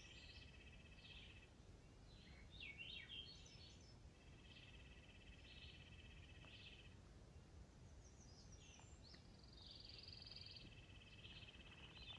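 Faint birdsong: a dry, even trill about two and a half seconds long, repeated three times, with short chirps and quick descending notes in between.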